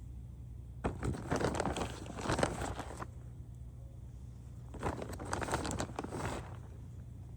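Rustling and crinkling from hands at work while planting beans, in two spells of about two seconds and a second and a half, over a steady low hum.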